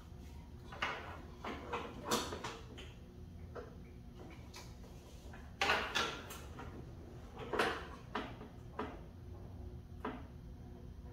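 About a dozen scattered knocks and clicks from handling a stopped DeWalt jobsite table saw while its blade angle is checked with an angle finder and adjusted. The loudest knocks come around the middle.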